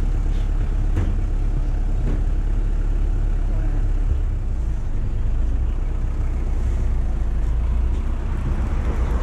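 Steady low rumble of a road vehicle in motion, with street traffic noise; the low drone shifts about four seconds in.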